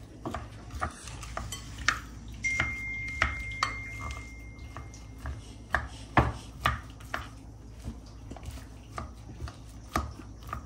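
A plastic rice paddle tapping and scraping against a glass mixing bowl as clumped overnight rice is broken up, making irregular clicks and knocks. One knock about two and a half seconds in leaves a thin ringing tone for about three seconds.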